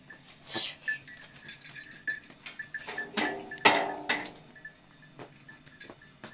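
Livestock calling, loudest about three seconds in, while a small bell clinks again and again.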